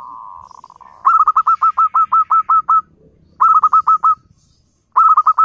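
Zebra dove (perkutut) calling: a soft rolling trill, then three runs of quick, loud staccato coos at about six notes a second, with short pauses between the runs.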